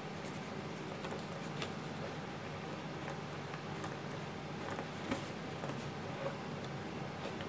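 Scattered light clicks and taps from hands handling and pressing a 3D-printed plastic gas pedal with coil-spring shocks, over a steady background hiss and hum. The sharpest click comes about five seconds in.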